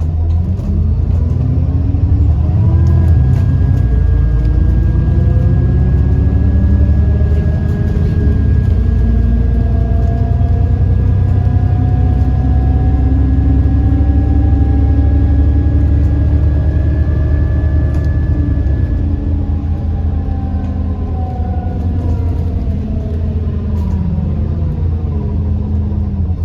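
Alexander Dennis Enviro 400MMC double-decker bus heard on board, its diesel engine and driveline under way with loud axle whine and a turbo whine. The whine rises as the bus speeds up, holds steady through the middle with a high steady tone, then falls away as it slows near the end. The uploader takes the loud axles and whine as signs of a worn-out bus.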